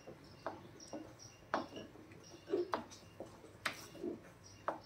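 Wooden spatula scraping and knocking against a heavy brass kadai as thick wheat halwa is stirred without pause, in short irregular clicks and scrapes about two a second. The halwa has cooked down to the point where it comes away from the pan.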